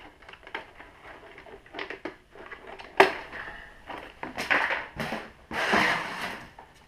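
Handling noises: scattered clicks, a sharp knock about three seconds in, then two bursts of rustling and scraping.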